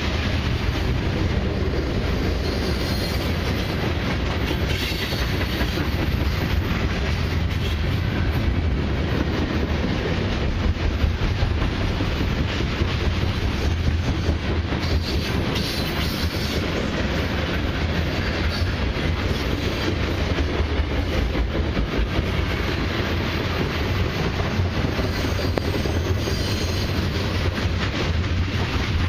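Freight cars of a long CN mixed and autorack train rolling past steadily: a continuous rumble with wheels clacking over the rail joints and occasional high wheel squeals.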